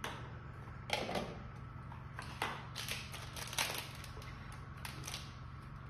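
Short clicks and clatter of plastic and metal being handled, as power plugs are pushed into a wall socket and the printer's conveyor frame is touched. There are a few separate knocks, the loudest about a second in, over a steady low hum.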